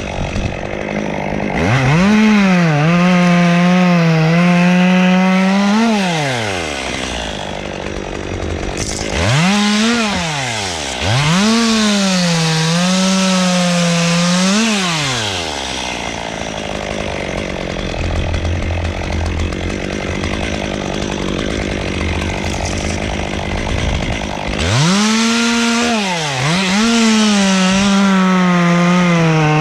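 Chainsaw revving up to full throttle and cutting wood, its pitch sagging slightly under load, then dropping back toward idle between cuts. This happens several times, with a long cut starting near the end.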